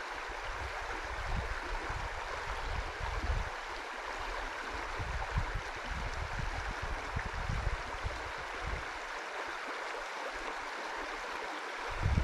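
Shallow river water running steadily over rocks in a riffle, an even rushing, with irregular low rumbles on the microphone now and then.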